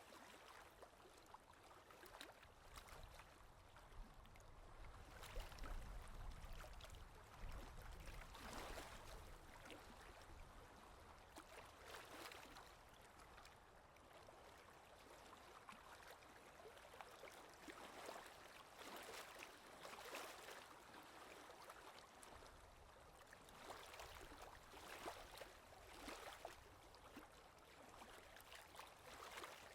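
Faint scratchy strokes of oil pastel rubbing on paper, coming irregularly every second or two.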